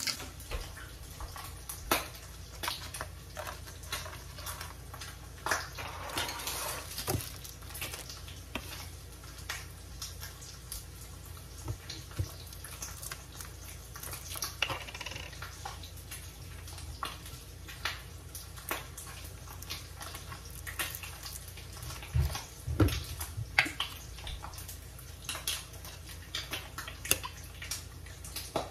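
Kitchen handling sounds: scattered clicks and clatters of dishes and food packaging, over a steady low hum and the faint hiss of meat frying in a cast iron skillet.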